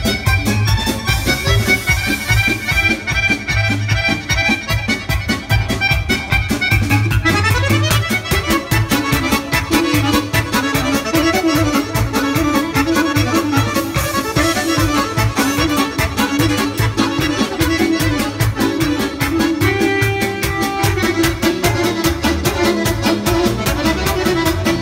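Live band playing a fast folk dance tune: an accordion-sounding lead melody over a steady, quick drum beat.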